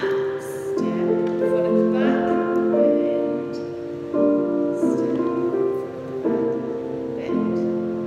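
Piano music for a ballet class exercise, a slow, gentle tune with a new chord struck about once a second.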